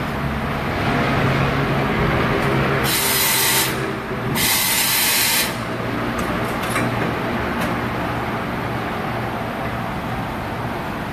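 1988 Okuma MC-4VA vertical machining center running with a steady hum. Two loud hissing blasts of air come about three and four and a half seconds in, followed by a few light clicks.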